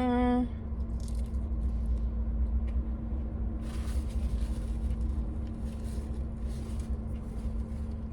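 Steady low rumble of a running vehicle engine with a constant hum, heard from inside the vehicle. A brief hummed 'mm' comes at the very start, and a short faint rustle about four seconds in.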